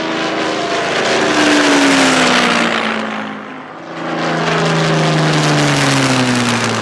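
An engine drone whose pitch slides slowly down, twice, over a loud rushing hiss, with a brief dip in level between the two glides.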